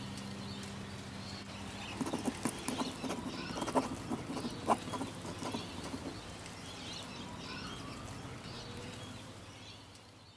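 The last of the music dies away, leaving high chirps and a cluster of sharp clicks and knocks in the middle. Everything fades out near the end.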